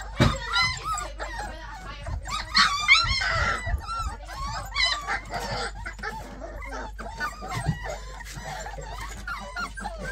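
A litter of three- to four-week-old puppies whining and yelping, many short high calls overlapping one another, with scattered knocks among them.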